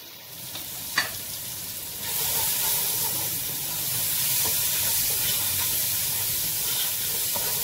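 Chopped onions, tomatoes and freshly added ground spices sizzling in hot oil in a nonstick pot while a spatula stirs them. A single sharp knock comes about a second in, and the sizzle grows louder about two seconds in, then holds steady.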